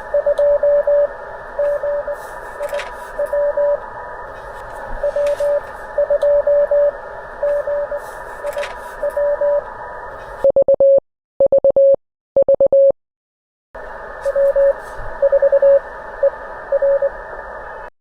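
Morse code (CW) received on a ham radio transceiver: a single tone near 600 Hz keyed in dits and dahs over a steady band hiss, with the signal's strength varying. About ten seconds in, the hiss cuts out and a louder, clean keyed tone with dead silence between its letters sounds for about three seconds. Then the hiss and received Morse return.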